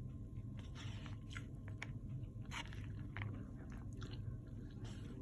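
A person chewing a mouthful of mixed vegetables close to the microphone, with irregular crunches and soft mouth noises, over a steady low hum.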